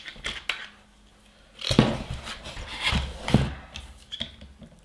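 Handling noise from a DJI Ronin-S gimbal being assembled and its screws tightened by hand: rubbing and small clicks, with three dull knocks, the first about a second and a half in.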